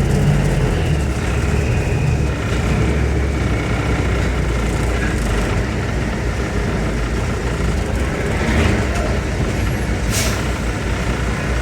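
Heavy grain-hauling vehicle's engine running steadily, with a short sharp hiss about ten seconds in.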